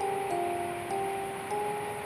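Background music: a gentle melody of clear, held notes stepping up and down, two voices moving together, over a soft steady hiss.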